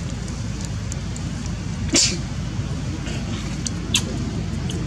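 Steady low rumble, like distant road traffic, with a short sharp hissing puff about two seconds in and a smaller one near four seconds.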